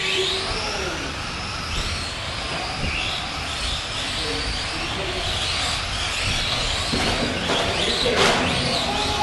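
Several electric Tamiya Euro Truck radio-control racing trucks running together, their motors whining and repeatedly rising and falling in pitch as they accelerate and slow, over a steady hiss. About eight seconds in, one whine falls sharply in pitch.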